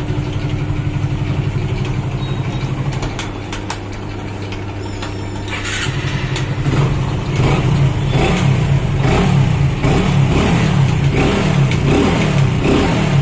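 Hero Super Splendor's single-cylinder four-stroke engine running after a rebuild with a rebored piston. It idles steadily for the first few seconds, quietens briefly, then from about the middle on is revved up and down over and over.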